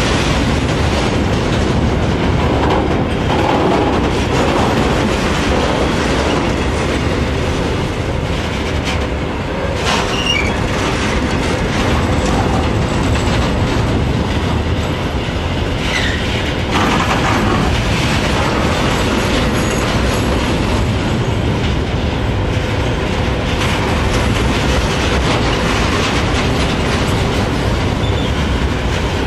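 Long freight train of covered sliding-wall wagons rolling past: a steady rumble and clatter of wheels over the rails, with brief wheel squeals about ten and sixteen seconds in.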